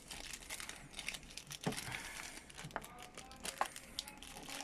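Plastic packaging crinkling, with scattered light clicks and taps of small parts being handled.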